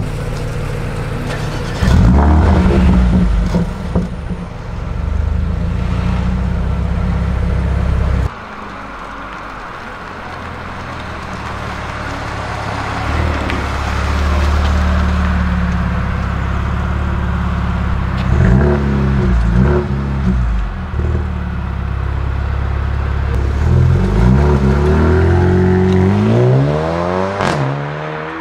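Mercedes-AMG CLA35's turbocharged 2.0-litre four-cylinder running through a Milltek aftermarket exhaust. It idles and is revved at a standstill near the start. After an abrupt cut it drives off, with pitch dropping and rising through gear changes, then accelerates hard with a rising pitch near the end.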